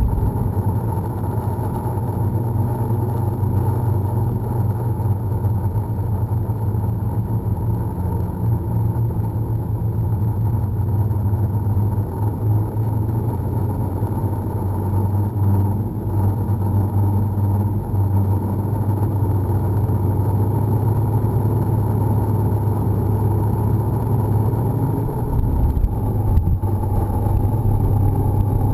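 Steady drone of an RC aircraft's electric motor and propeller, picked up by the camera mounted on the aircraft in flight. The pitch of the lowest part shifts slightly near the end.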